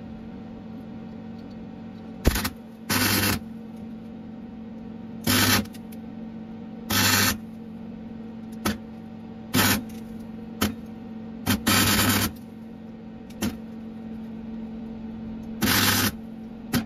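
MIG welder tack-welding captive nuts onto a steel panel: about a dozen short bursts of arc crackle, each under half a second, at irregular intervals. A steady hum runs underneath.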